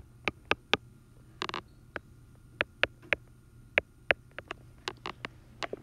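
Stylus tapping on an iPad screen while dotting in small marks: short, sharp taps at an uneven pace, a few a second, over a steady low electrical hum.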